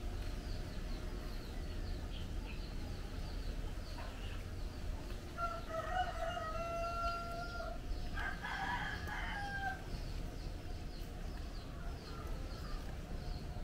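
A rooster crowing about halfway through, a long held call that ends in a falling tail, over a steady low background rumble and faint high chirping.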